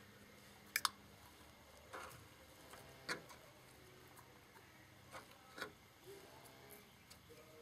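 A few light clicks and taps from handling PVC drain pipe and a can of PVC cement while the cement is being applied. A sharp double click about a second in is the loudest, followed by scattered softer ticks.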